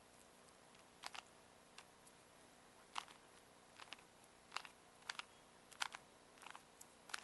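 Rubik's Cube being twisted by hand: short, sharp plastic clicks of the layers turning, singly and in quick pairs about every second.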